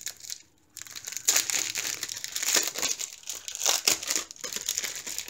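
Clear plastic packaging crinkling as a small bag of diamond-painting drills and its cellophane wrap are handled, an irregular rustling crackle starting about a second in.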